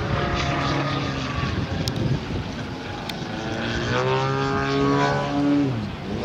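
Hand-built 500cc flat-four petrol engine and propeller of a 55% scale radio-control Yak 54 aerobatic plane in flight. The engine note falls over the first second or so, later rises and holds steady, then drops sharply just before the end and starts climbing again.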